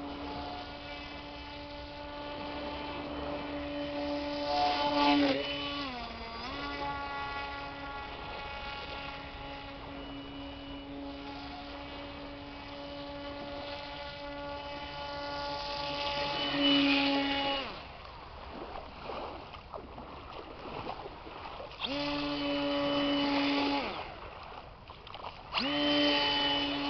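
Hand-made RC airboat's propeller motor running with a steady whine. Its pitch dips briefly about six seconds in as the throttle is eased, it cuts out about two-thirds of the way through, then comes back in two short bursts near the end.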